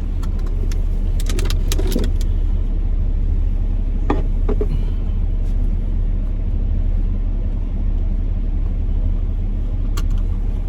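Car engine idling, a steady low rumble, with a few brief clicks and knocks.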